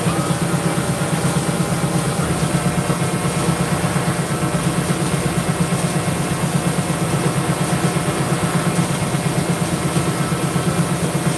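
Hydraulic press's pump unit running steadily, a low hum with a rapid, even pulsing, while a leaf-spring bushing is pressed.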